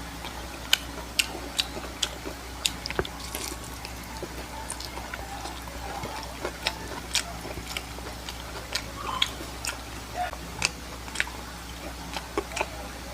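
Close-miked eating: a person chewing and biting food, with irregular sharp crisp clicks, about one or two a second.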